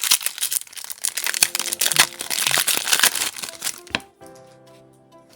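Foil booster pack wrapper being torn open and crinkled, a dense crackling for about four seconds. Quiet background music with steady notes comes in near the end.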